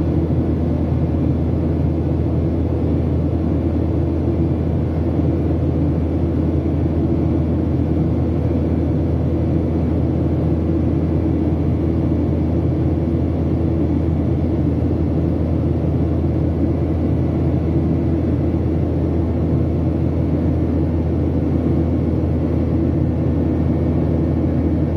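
Steady low drone of a Boeing 737-800's CFM56-7B turbofan engines and rushing air, heard from inside the cabin during the climb after takeoff.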